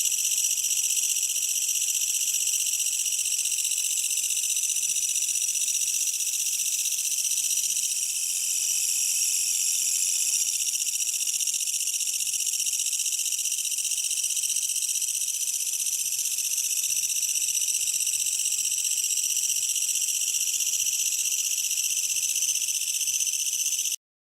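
A yabukiri bush katydid (Tettigonia) singing a continuous, high, hissing 'shaa-shaa' buzz that holds steady and stops abruptly near the end.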